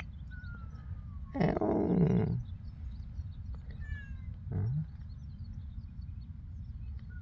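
A kitten meows twice: first a loud, hoarse call about a second long with a falling pitch, then a shorter, lower call about three seconds later.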